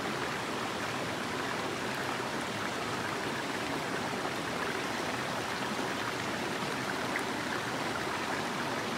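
Small stream flowing steadily over rocks, a constant rush of water.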